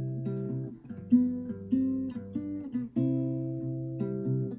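Gretsch parlor-style acoustic guitar being played: a run of picked and strummed chords, each struck chord left to ring into the next.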